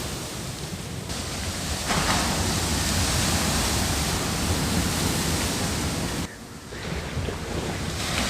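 Rough sea surf and wind making a steady rushing noise, with wind buffeting the microphone. It grows louder about two seconds in and dips suddenly for a moment near the end.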